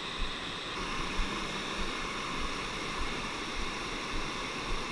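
Steady rush of a small waterfall pouring into a creek pool, with a few faint low bumps.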